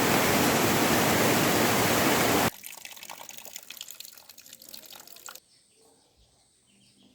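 Loud rushing water that cuts off abruptly about two and a half seconds in. Fainter crackly noise follows and also stops suddenly, about five and a half seconds in.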